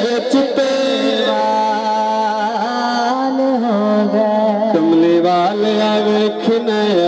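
Devotional Punjabi kalam sung by a man: long held notes that waver and slide from pitch to pitch, with no clear words.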